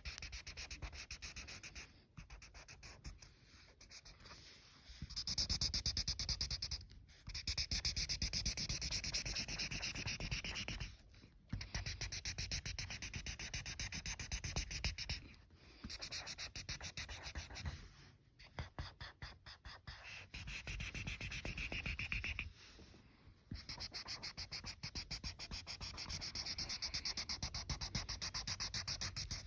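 Colouring on paper: a drawing tool scratching in fast back-and-forth strokes, in runs of a few seconds with brief pauses between.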